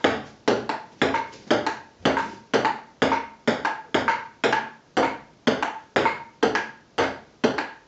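Table tennis ball in a steady rally: the crisp clicks of bat strikes and bounces on the table alternating at about four a second, each with a short ringing ping.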